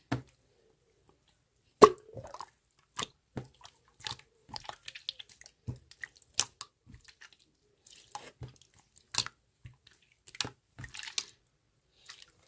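Irregular wet clicks and squishes, a few each second with short pauses; the loudest is a sharp snap about two seconds in.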